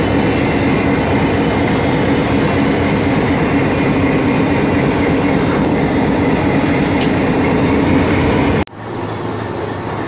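Diesel locomotive running, heard inside its cab: a loud, steady drone with a constant low hum. Near the end the sound drops abruptly and comes back quieter and duller.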